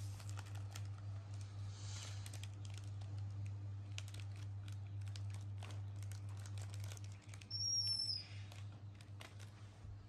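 A plastic snack wrapper crinkles and clicks as it is handled and opened, a run of small irregular ticks over a steady low hum. About three quarters of the way in, a short high-pitched chirp is the loudest sound.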